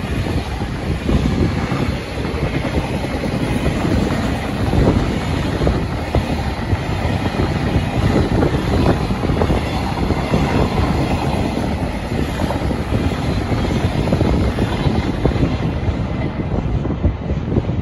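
Long JR Freight container train rolling past, its wagon wheels running over the rails with a steady rumble and faint knocks; the sound thins out near the end as the last wagons go by.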